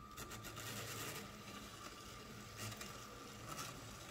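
LEGO City freight train's battery-powered motor running with a faint steady whine as it hauls 18 cars, with light irregular clicks of plastic wheels rolling over the track.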